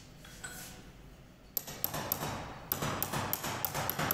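A small hammer tapping on a metal part of a Fiat tractor hydraulic pump clamped in a bench vise: a run of quick, sharp taps starting about a second and a half in, roughly three a second.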